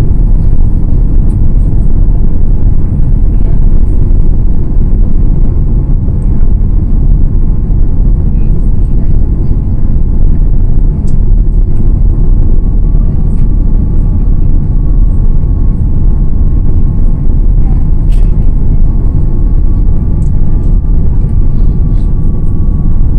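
Cabin noise inside a Boeing 787-9 Dreamliner on approach: a steady, loud rumble of the engines and rushing air. A faint high whine joins about halfway.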